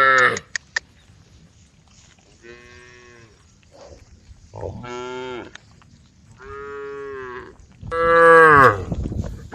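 Cattle mooing in a string of separate drawn-out calls, each about a second long, with the loudest call near the end.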